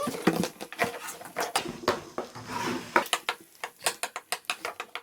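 Plastic toys and containers being handled: an uneven run of sharp clicks, taps and light clatter, with rustling in between.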